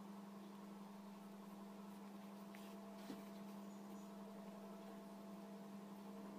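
Near silence: a low, steady electrical hum, with one faint click about three seconds in.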